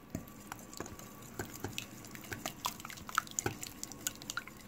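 A wire whisk beating a runny mix of egg, oil, powdered sugar and orange zest in a glass bowl: the liquid stirs with many quick, irregular light clicks of the wires against the glass.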